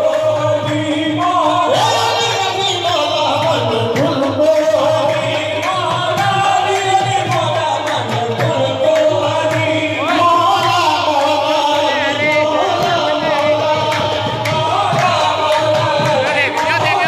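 Qawwali: male voices singing ornamented melodic lines over harmonium accompaniment, with steady rhythmic hand-clapping.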